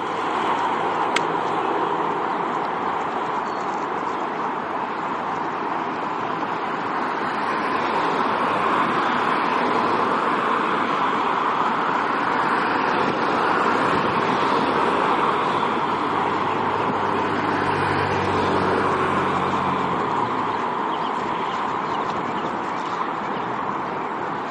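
News helicopter flying overhead at a distance, heard as a steady wash of noise blended with city traffic. A low engine hum swells briefly about three-quarters of the way through.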